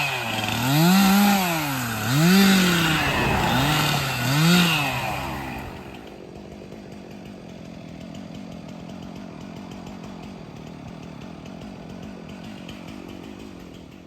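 Stihl 362 two-stroke chainsaw revving up and down about four times, then dropping to a steady idle about five seconds in.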